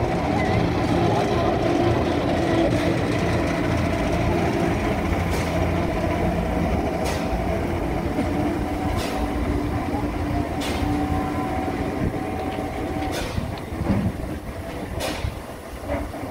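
Railway turntable rotating with a small steam tank locomotive on its bridge: the drive runs with a steady hum and whine, with a sharp click roughly every two seconds as it turns. The running sound dies down about 13 seconds in as the bridge comes to rest.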